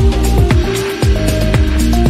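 Background electronic music with a steady kick-drum beat and held synth notes; the beat drops out briefly about halfway through, then comes back.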